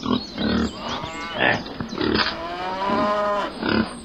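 Recorded cow mooing in one long drawn-out call about two seconds in, among several shorter animal calls.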